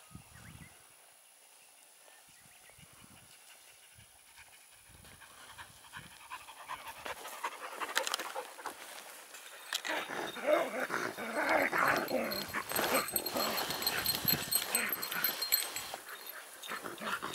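A dog panting close by: faint at first, then rising about halfway through and loudest through the last several seconds.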